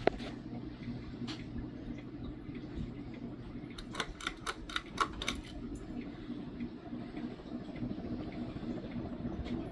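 Vintage Codep Stratoflite ceiling fan's cast motor running with a steady hum. A quick run of sharp clicks comes about four to five seconds in.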